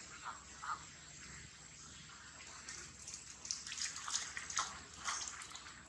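Macaque moving through shallow water and wet grass: light splashes and rustles, a couple early and a quick run of them in the second half.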